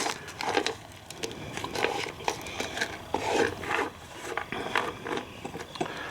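Small plastic tool-box drawer detents being handled, giving a string of irregular light clicks and rattles.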